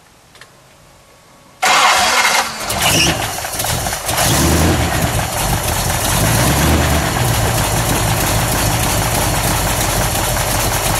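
Cadillac V8 fed by six Stromberg 97 carburetors starting up: it fires abruptly about one and a half seconds in, runs unevenly for a couple of seconds, then settles into a steady idle.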